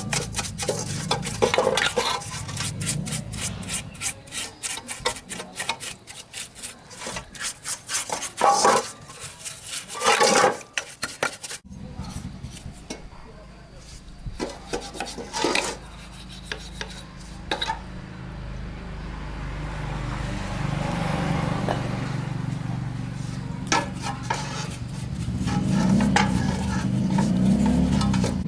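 Hand-tool work on metal engine parts: many quick rubbing and scraping strokes with clinks, then a steadier stretch under a low hum that grows louder near the end.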